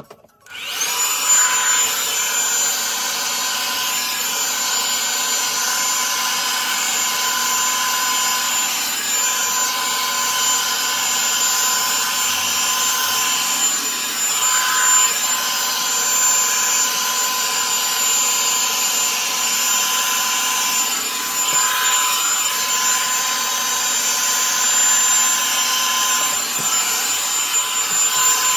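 Revlon One-Step Volumizer hot-air brush dryer switched on about half a second in and then running steadily: a blowing rush with a steady high motor whine.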